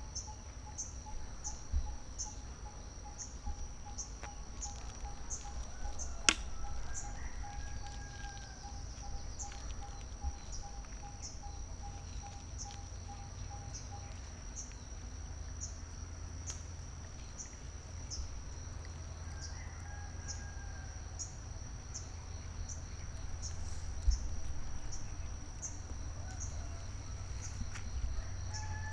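Natural background sound of insects and a bird. An insect keeps up a steady high-pitched trill that pulses about once or twice a second. A bird repeats a single low note two or three times a second until about halfway through. Under this runs a low wind rumble, with one sharp click about six seconds in.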